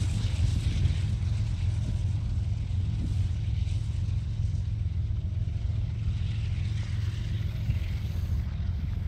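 Diesel freight train rolling by with a steady low rumble, and a faint thin tone entering about halfway through.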